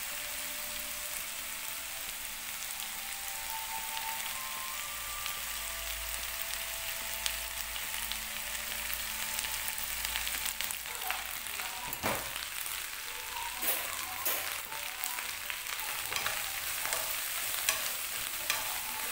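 Pork skin cracklings sizzling steadily in a hot pan with their fish-sauce seasoning. From about halfway through, a spatula scrapes and clacks against the pan as they are stirred.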